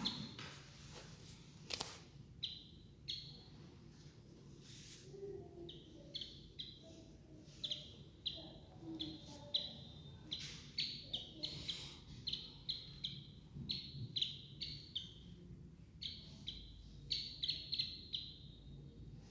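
Baby birds peeping: a run of short, high chirps, one or two a second at first and coming faster near the end.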